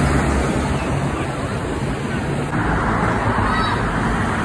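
A large coach passing close by: diesel engine rumble and road noise, with a crowd chattering at the roadside.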